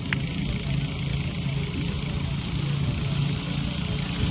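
A steady low engine-like hum, with a single short click right at the start.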